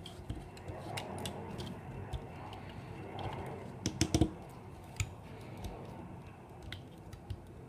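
Small plastic clicks and knocks of a Transformers Combiner Wars Deluxe Firefly action figure as its parts are turned and snapped into robot mode by hand, with a quick cluster of sharper clicks about four seconds in.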